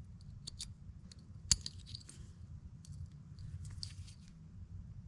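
Small metal parts and a hand tool being handled while working on the ATV's forward/reverse shifter detent: scattered light clicks and short scrapes, with one sharper click about a second and a half in, over a low steady hum.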